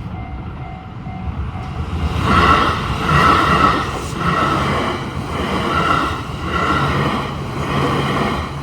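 Japanese level crossing bell ringing its steady repeating ding, then a train passes over the crossing from about two seconds in. The wheels clatter in a regular beat and drown out the bell.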